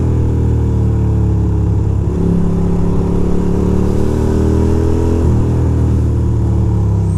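2006 Ducati Monster 620's air-cooled L-twin engine running steadily on the move, its note drifting gently down and then up, with two brief changes about two and five seconds in.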